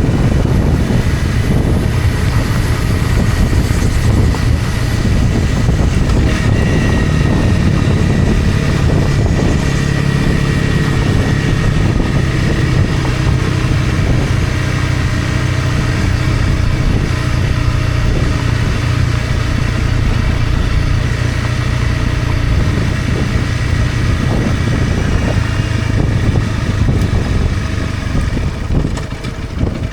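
Honda CRF250 Rally's single-cylinder engine running steadily as the motorcycle is ridden, easing off slightly near the end.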